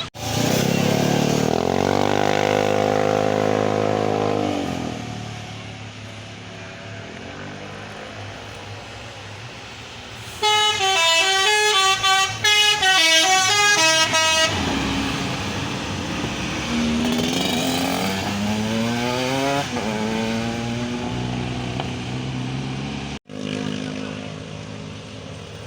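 Bus telolet horns sounding over a background of traffic. A long, loud, deep horn note comes first, sliding up in pitch as it starts and down as it stops after about four seconds. About ten seconds in, a quick telolet tune of stepping high notes plays for about four seconds, followed by fainter rising horn slides.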